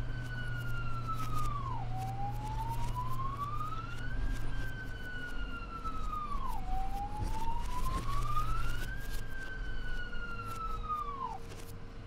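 Ambulance siren sounding in a slow wail: one tone rising and falling between a high and a low pitch about every five seconds, each fall ending in a quick drop, over a low steady hum.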